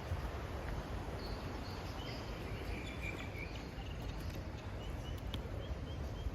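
Outdoor ambience along a riverside path: a steady low rumble with faint, short high chirps scattered throughout.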